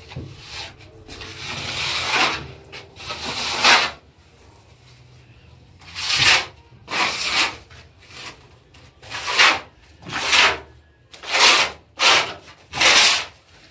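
A gloved hand rubbing down a plastered wall in rough scratchy strokes: a longer stretch of rubbing first, then short separate strokes about one a second.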